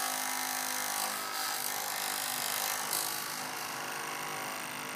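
Small electric motor of a homemade wave generator running steadily, a constant hum under an even whirring hiss.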